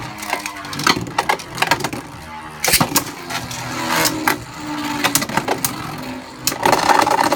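Two plastic Hasbro Beyblade Burst tops, Vise Leopard and Surge Xcalius, spinning and battling in a stadium: a steady whirring hum broken by many sharp clacks as they collide.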